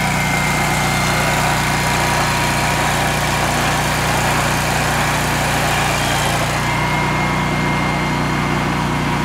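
Wright Stander ZK stand-on mower's 40-horsepower fuel-injected engine running steadily as the mower is driven slowly, with a faint steady whine over the engine hum.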